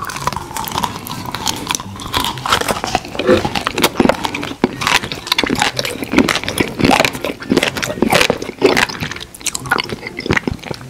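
Close-miked ASMR eating sounds: biting into and chewing a spiky yellow coronavirus-shaped edible, a dense run of sharp mouth clicks and crunches.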